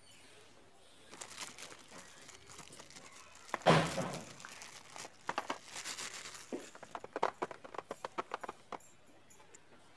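Clear cellophane wrap being torn and peeled off a cardboard chocolate box, crinkling and crackling, with the loudest rip about three and a half seconds in. A quick run of sharp crackles and clicks follows as fingers work at the wrapped box.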